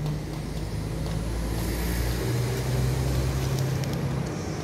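A motor vehicle's engine running nearby, a low hum that swells in the middle and eases off near the end.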